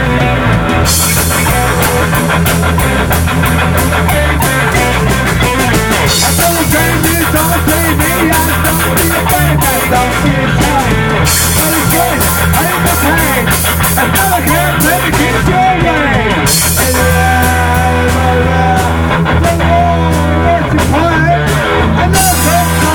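Rock band playing loudly, electric guitar to the fore over a steady bass line and drums.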